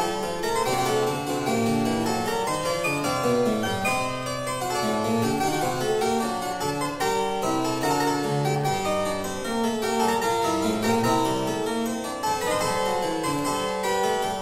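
Harpsichord music: a continuous run of quick notes in several voices.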